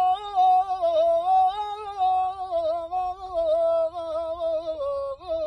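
A man singing unaccompanied in manele style, drawing one syllable out into a long melismatic line full of quick pitch turns, drifting slowly lower.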